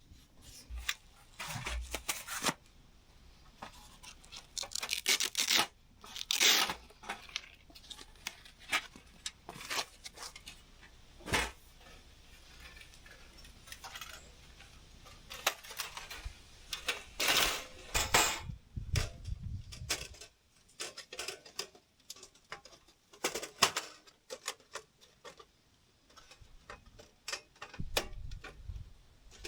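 Irregular clicks, rustles and light clatter of objects being handled, with a few soft thuds.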